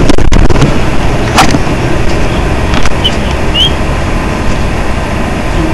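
Loud steady rumbling noise from the phone's microphone as it is carried and handled, with a few sharp clicks, the strongest about a second and a half in, and two short high squeaks just past the middle.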